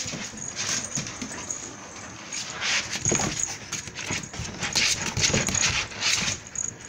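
Four-week-old pit bull puppies whimpering in short, irregular squeaks as they squirm over one another.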